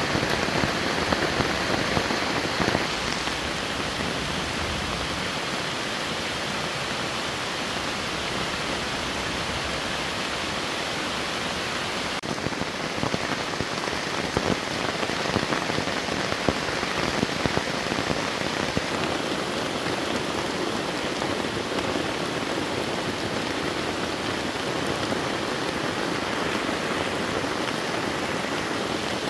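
Steady heavy rain falling in the forest, an even hiss with scattered sharper drop hits, more of them for a few seconds near the middle.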